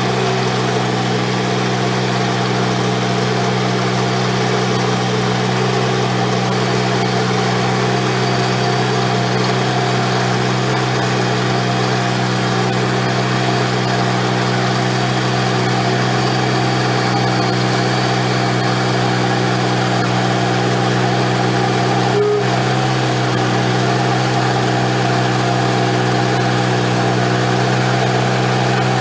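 Wood-Mizer LX150 bandsaw sawmill running steadily at a constant pitch through a cut in a sweetgum log.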